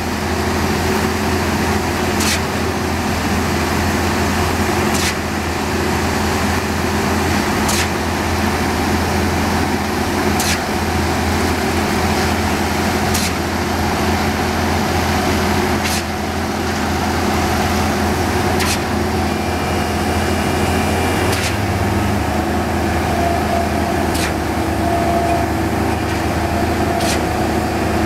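Steady diesel engine drone of heavy concrete-paving machinery running, with a sharp click or clank repeating about every two and a half to three seconds.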